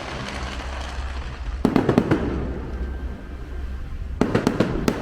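Fireworks going off: two clusters of crackling bangs, one about a second and a half in and another near the end, over a steady low rumble.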